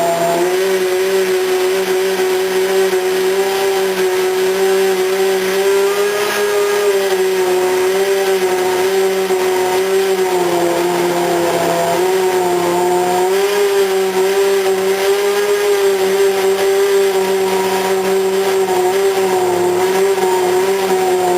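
Racing car engine held at a steady, high rev, its note wavering slightly and dipping briefly a couple of times.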